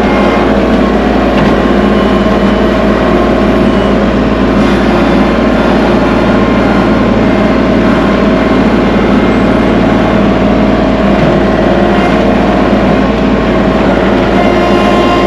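Kubota tractor's diesel engine running steadily and loudly, without let-up.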